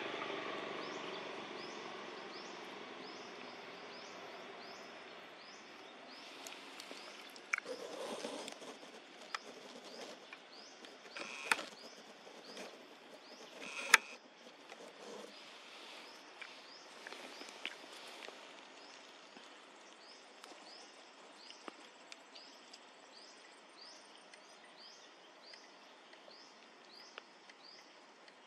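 A bird repeating one short, high chirp over and over, about twice a second, over faint outdoor background noise. A rumbling noise fades away over the first few seconds, and a few sharp clicks stand out, the loudest about halfway through.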